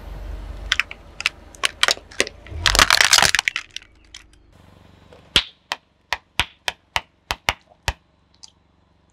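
A car tyre rolling over hollow plastic toy airplanes, the plastic cracking and snapping under the weight. The loudest stretch is a dense burst of breaking about three seconds in. In the second half comes an evenly spaced run of about nine sharp pops, roughly three a second.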